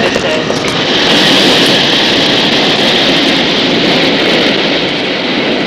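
Jet airliner engine noise: a loud, steady rush with a high whine on top.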